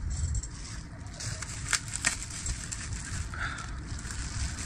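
Makeup products and packaging being handled: rustling and crinkling, with two sharp clicks close together about two seconds in.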